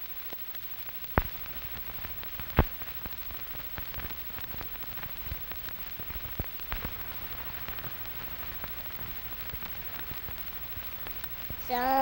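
Steady soft hiss with scattered small ticks and a few louder clicks, about a second in, near two and a half seconds in, and twice past six seconds, like rain pattering.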